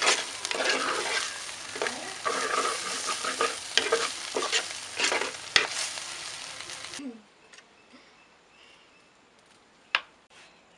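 Chopped bottle gourd leaves sizzling as they fry in a clay pot, stirred with a spoon in quick scraping strokes. The sizzling cuts off suddenly about seven seconds in, and a single sharp clink follows near the end.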